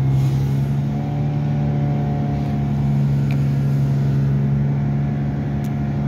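Steady low drone of a large engine or machine running, a constant hum that holds the same pitch throughout.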